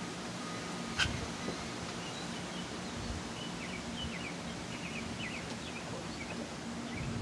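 Outdoor background: a low steady hum, one sharp click about a second in, and a run of faint, short, high chirps through the second half.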